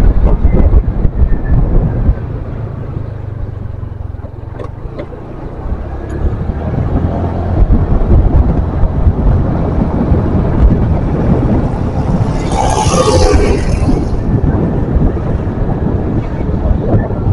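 Wind buffeting the microphone and road noise while riding a motorcycle through city traffic. The noise eases for a few seconds about two seconds in, and a brief louder hiss passes about twelve seconds in.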